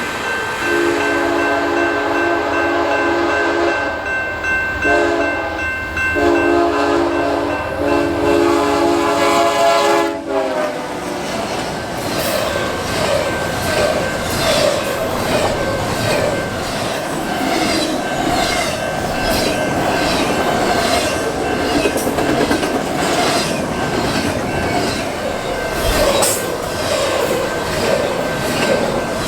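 A locomotive horn sounds a long blast, a short blast, then a long one, and its chord drops in pitch as the locomotive passes. A train then rolls by with a steady rumble and a regular clickety-clack of wheels over rail joints.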